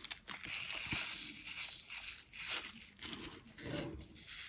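Small plastic bags of diamond-painting drills crinkling and rustling in irregular bursts as they are handled.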